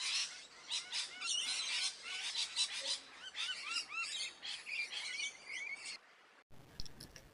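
Parrot chattering: a rapid run of chirps and short, arching whistled notes that cuts off abruptly about six seconds in.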